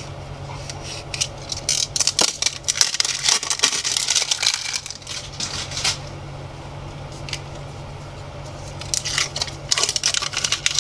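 Plastic packaging being cut open with a box cutter and handled: clusters of crackling and clicking from about two to six seconds in and again near the end, over a steady low hum.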